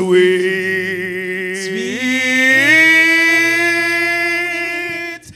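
A man's voice singing a worship song, holding one long note with vibrato, then sliding up about two and a half seconds in to a higher held note that breaks off near the end.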